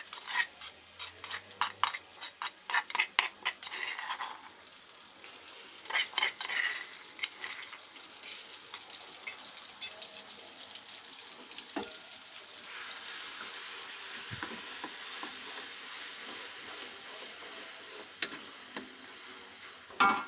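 Pounded spice paste of onion, garlic and candlenut sizzling in hot oil in a pan while it is stir-fried. A spatula scrapes and clicks against the pan in quick runs during the first four seconds and again about six seconds in, and the sizzle turns steadier and denser in the later part.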